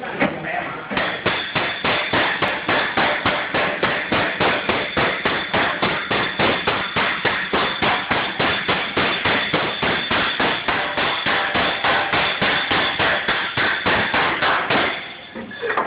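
Hammer blows on sheet steel, struck in a steady even rhythm of about three a second, with a faint high ring from the metal. The blows begin about a second in and stop near the end.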